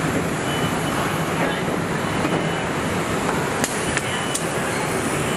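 Steady machinery din of a car assembly line, with a few sharp clicks and clanks between about three and four and a half seconds in.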